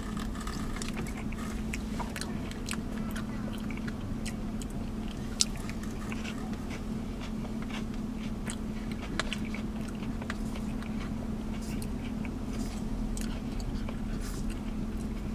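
Close-up eating sounds of a man eating banana pudding with a plastic spoon from a plastic cup: soft chewing and mouth sounds and small spoon clicks, with one sharper click about five seconds in. A steady low hum sits underneath.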